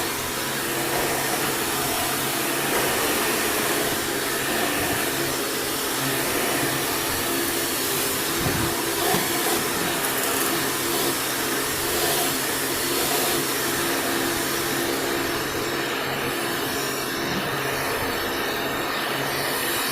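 Old Hoover commercial top-fill upright vacuum cleaner running steadily on a rug: a constant motor hum under a rush of air. Its high hiss dulls somewhat about three-quarters of the way through.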